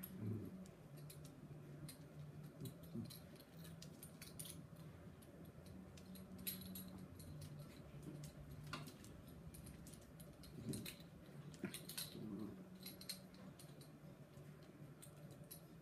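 Miniature schnauzer growling low and drawn-out in play while wrestling a kitten, with short clicks and scuffles of claws and paws on the tile floor.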